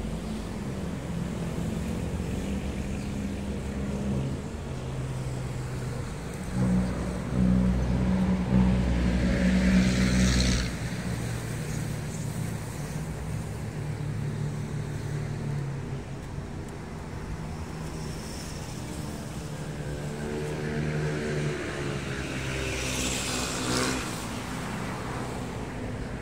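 Road traffic, a steady low rumble of vehicle engines. It grows louder for a few seconds in the first half, and near the end an engine's pitch rises and falls as it passes.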